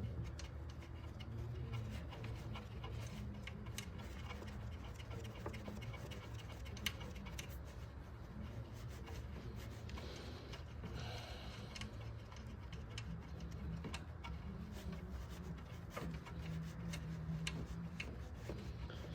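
Faint, scattered metallic clicks and taps of hand tools working a stuck fastener in an engine bay, over a steady low hum.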